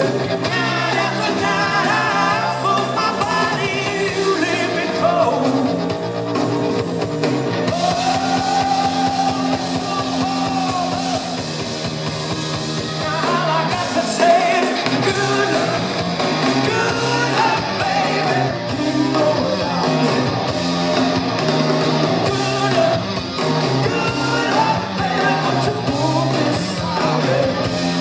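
Live rock band playing a loud rock song, with a singer's voice over the band.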